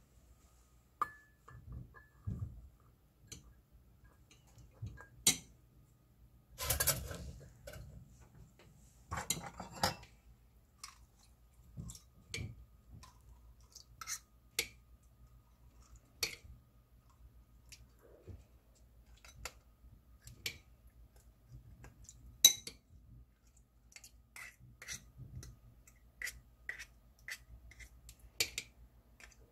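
Metal teaspoon clinking and scraping against a ceramic plate and an eggshell as soaked rice is scooped into the shell: irregular light taps throughout, with two longer scrapes a few seconds in.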